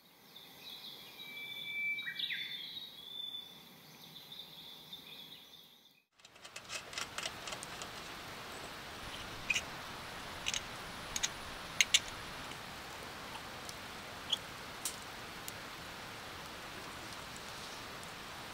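Faint bird-like chirps with one falling note, then, after a break, a steady low hiss with scattered sharp metal clicks and ticks as hands handle a hurricane-style oil lantern.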